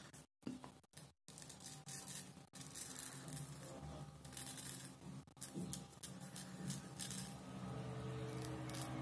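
Kamisori (Japanese straight razor) blade scraping through stubble under shaving lather in short repeated strokes. A faint steady low hum sits underneath and grows stronger near the end.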